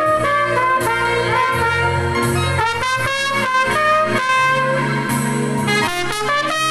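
Trumpet playing a melody in held notes over a recorded band accompaniment with a steady bass line.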